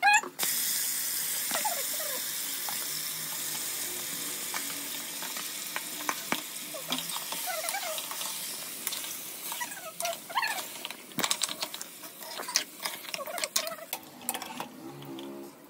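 Oil sizzling as soya chunks fry in a kadhai. The sizzle starts suddenly and slowly dies down. In the second half, a metal spoon stirs chicken curry in a pressure cooker, with many short scrapes and clinks against the pot.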